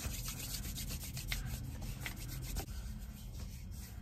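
Hands rubbing together to work in hand sanitizer: a soft, steady rubbing with many small sticky ticks.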